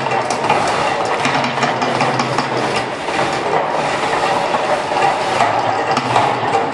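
The Mirage volcano eruption show in full flow: a loud, continuous rush of noise thick with crackles, from the show's amplified eruption effects together with its gas fire jets and flame bursts.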